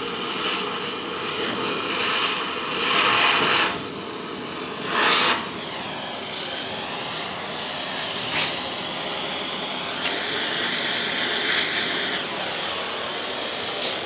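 Handheld propane torch burning with a steady hiss as its flame heats a tin can lid to flow solder around a tube joint. The hiss swells louder twice, about three and five seconds in.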